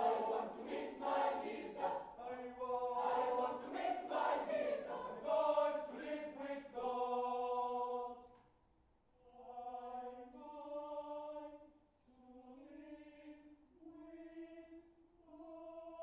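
Mixed choir singing an a cappella spiritual, full and loud with quick rhythmic phrases, closing on a held chord that fades about eight seconds in. Softer sustained choral chords then follow in short phrases.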